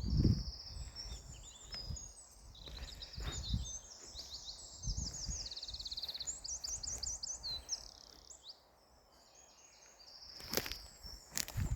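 Several songbirds singing at once, overlapping songs of fast trills and quick repeated chirps. A few low thumps and two sharp clicks near the end sound underneath.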